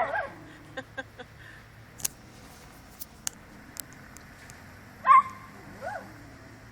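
Dog barking: a barking run trails off at the start, then after a quiet few seconds with faint clicks, one short, sharp bark about five seconds in and a fainter yelp just after.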